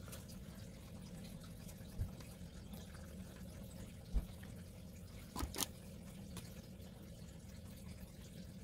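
Quiet low hum with a few small handling sounds from fineliner pens: two soft knocks against the table, then a pair of quick clicks about five and a half seconds in, as a pen cap is pulled off and snapped back on.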